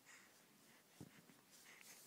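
Near silence: faint room tone, with one soft, brief thump about a second in.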